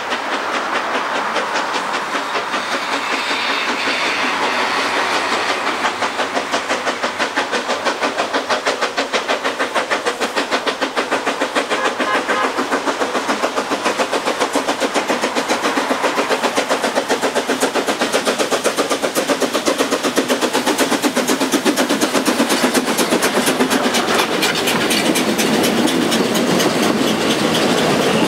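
Narrow-gauge steam train approaching and passing: the locomotive works with rapid, even beats and grows steadily louder. Its passenger coaches then roll by close with a rhythmic clatter from the wheels.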